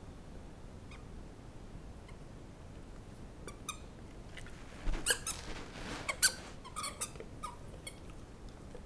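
Dog's squeaky toy squeaking in a quick series of short squeaks as a Great Dane bites on it, busiest and loudest about five to six seconds in.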